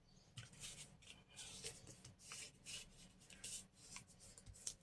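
Faint rustling and rubbing of paper journal pages being handled and folded: a run of short, irregular scratchy strokes.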